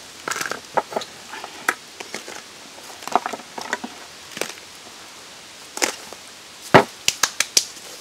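Irregular sharp clicks and knocks as live mud crabs are put into a large blackened bowl, their shells and claws tapping against it, with a quick run of louder taps near the end.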